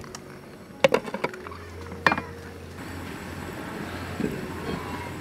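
Glass pot lid set onto a stainless steel soup pot, clinking sharply twice, followed by a steady low hum from the portable gas stove's burner under the pot.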